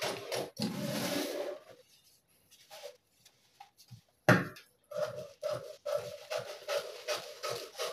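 Scissors snipping through brown pattern paper in a quick run of short cuts with paper rustling. After a brief pause there is one sharp knock about four seconds in, then the rapid snipping resumes.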